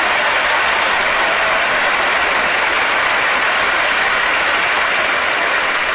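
Large crowd applauding steadily, a dense, even clatter of many hands clapping that eases slightly near the end.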